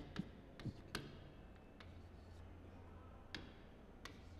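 Chalk tapping and scraping on a chalkboard while an equation is written: a few scattered sharp taps, strongest about a second in and again past the three-second mark, over faint room hum.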